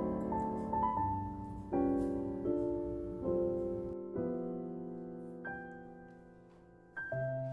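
Gentle background piano music: a few separate notes, then a chord held and slowly fading, with new notes starting up about a second before the end.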